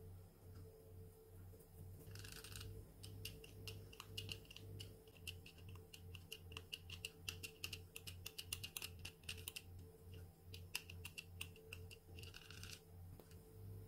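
Hard cheese being grated by hand over a pan of risotto: a quick run of light, faint scraping strokes that starts about two seconds in and stops near the end.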